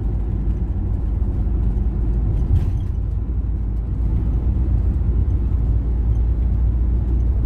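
Renault Master van driving on the road, heard from inside the cab: a steady low rumble of engine and tyre noise.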